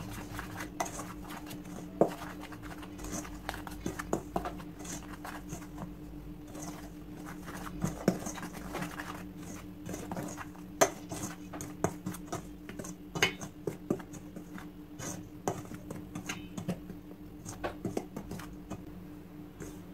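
Metal spoon stirring dry flour and breadcrumbs in a stainless steel bowl, scraping and clinking irregularly against the bowl, with a few louder knocks. A faint steady hum underneath.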